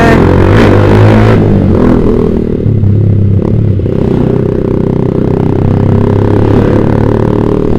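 Yamaha Vixion's single-cylinder engine running through a Proliner TR1 short aftermarket exhaust while riding in slow traffic, its note swelling and easing several times with the throttle.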